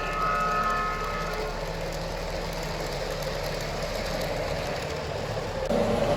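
O gauge model trains running on the layout: wheels rolling on the track with the locomotive's electronic sound system. A multi-tone horn or whistle signal fades out about a second in, and the running sound gets louder near the end.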